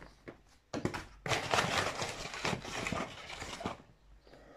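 Cardboard box and packaging being handled and rummaged through: a few sharp clicks and knocks, then about two and a half seconds of rustling and crinkling that stops near the end.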